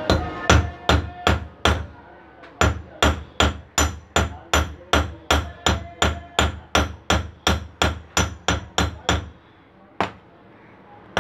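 A hammer beating the tip of a thick steel wire flat on top of a cast-iron bench vice, at about three blows a second. The blows pause briefly near the start, then stop after about nine seconds, with one last blow a second later. The flattening shapes the wire's end into a wedge-like mouth.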